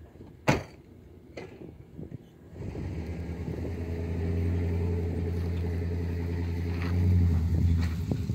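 A sharp knock about half a second in and a lighter one a second later, then a vehicle engine starts about two and a half seconds in and keeps running, growing louder for a moment near the seven-second mark.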